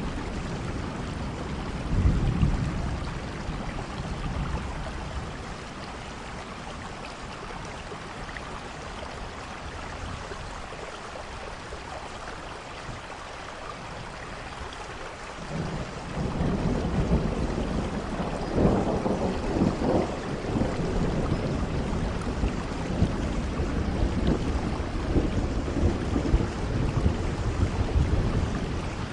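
Steady rain with thunder rumbling. After a quieter stretch of rain alone, a long roll of thunder builds about halfway in and keeps rumbling to the end.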